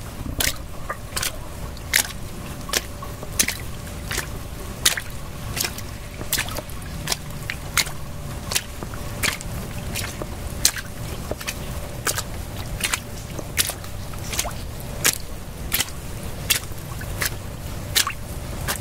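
Water dripping: sharp, irregular drips about one to two a second over a low, steady rumble.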